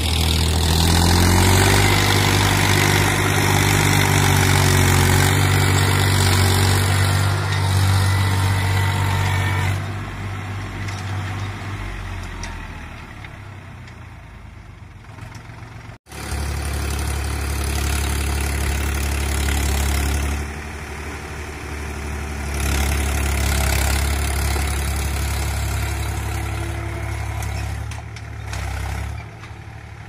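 Diesel tractor engine running under load as it pulls a tine cultivator through the field. Its pitch rises about a second in and the sound fades around the middle. After a sudden break it is loud and steady again, then drops away near the end.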